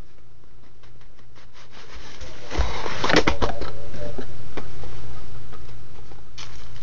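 Packaging being handled: a cardboard box and a foil-lined plastic bag rustling and crinkling in a run of small clicks, with a dense burst of crackling and a low knock about three seconds in. A steady low hum runs underneath.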